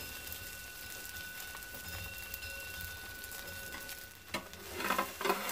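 Battered dureup (angelica tree shoots) frying in oil in a pan, a soft steady sizzle. Near the end a few knocks and scrapes come from the spatula against the pan.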